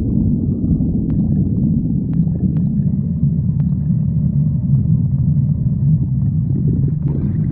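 Stomach growling: a continuous low rumble with a few faint clicks.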